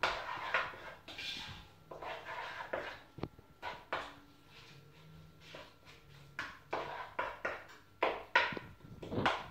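A spoon stirring and scraping a spice paste frying in butter in a pan, in irregular strokes about one or two a second.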